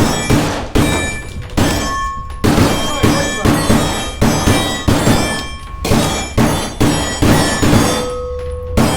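Gunshots fired in quick, uneven succession, about two to three a second, several of them leaving a short ringing tone.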